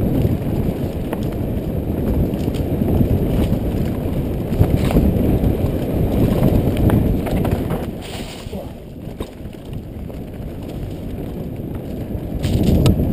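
Specialized Demo 8.1 downhill mountain bike descending a dirt singletrack: the tyres rumble over the trail, with frequent sharp clacks and rattles from the bike as it hits bumps. It eases off for a couple of seconds about two-thirds of the way through, then picks up again near the end.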